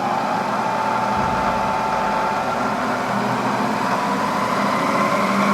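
Bridgeport Series 1 milling machine's 2 hp spindle motor and drive running from low speed, with a steady whine that rises slowly in pitch as the spindle speeds up.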